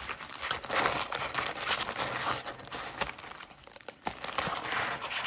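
Foil-wrapped Japanese Pokémon 151 booster packs crinkling and rustling as a stack of them is shuffled by hand, an irregular crackle with a short lull near the end.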